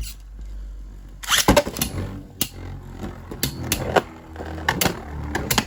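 Beyblade Burst spinning tops, Dynamite Belial and Helios Volcano, whirring and clashing in a plastic stadium, with irregular sharp clicks and knocks as they hit each other and the stadium walls.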